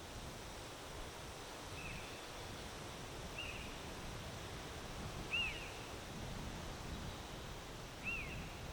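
Wind gusting over the microphone with a rustling hiss, while a bird gives four short down-slurred calls, spaced a second or two apart; the last two are the loudest.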